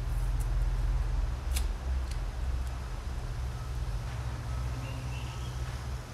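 Steady low outdoor rumble, with a single sharp click about one and a half seconds in.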